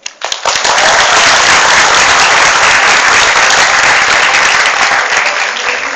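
Audience applauding, breaking out suddenly as the song ends and tailing off near the end.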